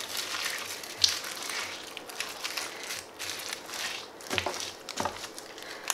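Metallic foil confetti crinkling and crackling as a hand presses a lump of slime into it and lifts it back up, with a few sharper clicks about a second in and near the end.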